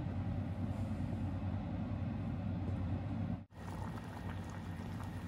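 A pot of gulasch boiling on the hob while a wooden spatula stirs it: steady bubbling over a low rumble. The sound drops out for an instant about three and a half seconds in.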